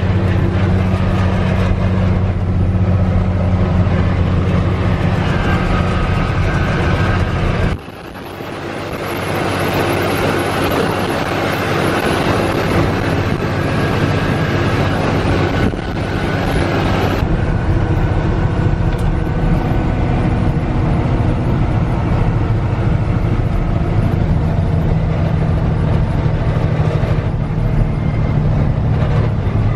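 Mack R-Series truck's diesel engine droning steadily at cruising speed, heard from inside the cab. About eight seconds in it cuts off abruptly to a stretch of rushing wind and road noise with a faint high whine. About seventeen seconds in the engine drone returns.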